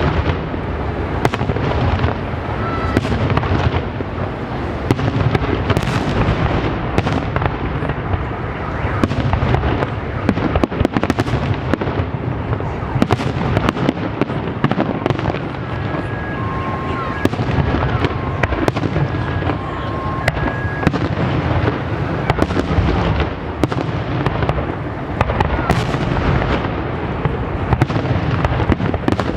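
Fireworks salute: a dense, continuous barrage of bangs and crackling shell bursts overlapping one another without a break. A short run of alternating two-pitch beeps is heard about halfway through.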